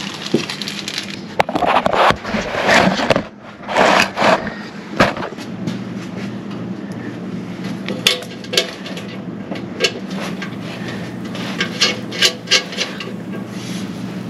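Steel slider bracket and bolts being handled and shifted into place under the vehicle: scraping and rubbing in the first few seconds, then a series of sharp metallic taps and clicks. A steady low hum runs underneath.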